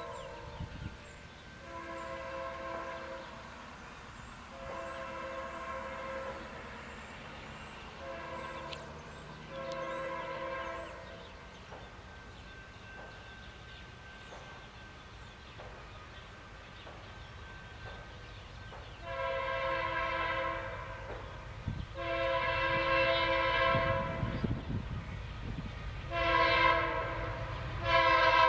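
Diesel locomotive's multi-chime air horn sounding the long-long-short-long grade-crossing signal twice as a freight train approaches, the second sequence much louder. The low rumble of the train grows near the end.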